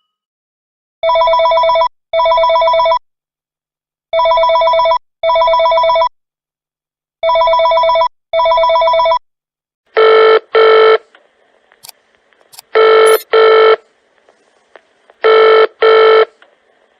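Two telephone ringtones one after the other, both ringing in pairs. First a warbling electronic ring in three double rings about three seconds apart, then, about ten seconds in, a different phone ringing in shorter, sharper double rings, three pairs, with faint clicks and room noise between them.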